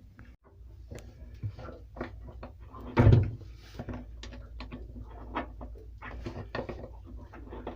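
Handling noises from removing an old water-separating fuel filter: a run of small clicks and knocks, with one louder thump about three seconds in.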